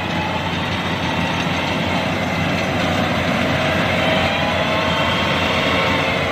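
Yanmar 82V rice combine harvester running: a steady, loud mechanical din from its engine and machinery, with a faint whine that rises slightly a few seconds in as the machine gets a little louder.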